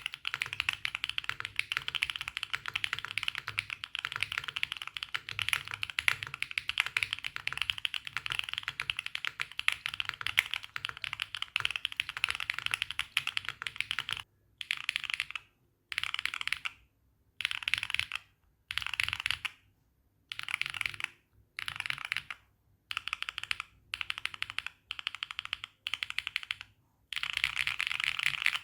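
Typing on a Neo80 mechanical keyboard with Epomaker Wisteria tactile switches, mounted on a polycarbonate plate with no foam inside. The first half is continuous fast typing; then about ten short bursts of keystrokes follow, each about a second long, separated by brief pauses.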